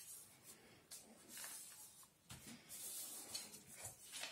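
Faint rustling and scraping of a sheet of paper being folded and pressed flat by hand, in a few short, soft stretches.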